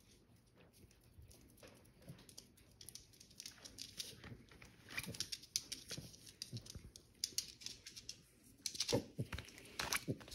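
A cat and a puppy play-fighting on a cork floor: paw taps, scrabbling and fur rubbing, in quick irregular scuffles that grow busier about halfway, with a few louder knocks near the end.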